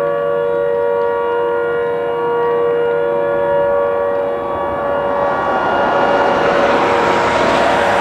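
Harland & Wolff shipyard siren sounding one long steady tone with many overtones. From about five seconds in, a passing car's road noise swells up over it.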